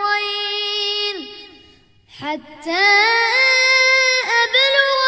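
A child's voice reciting the Quran in melodic tajweed style. A long held note fades out about a second in, there is a short pause for breath, and the recitation resumes with pitch glides and sustained notes.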